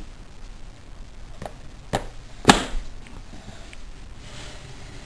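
Plastic crayon case being shut: three sharp plastic clacks, the loudest about two and a half seconds in.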